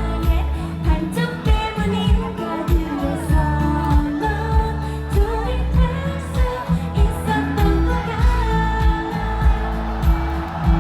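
K-pop song performed live: a female voice singing the melody over a pop backing track with a steady beat.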